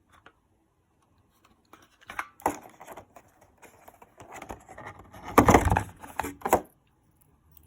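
Handling noises as a fire alarm pull station is taken out of its opened package: rustling and light clicks that begin a little under two seconds in, with a louder burst and a thump past the middle, then stopping about a second before the end.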